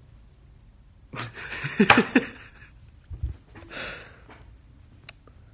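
A man's breathy laugh about a second in, then a softer breath out near the middle.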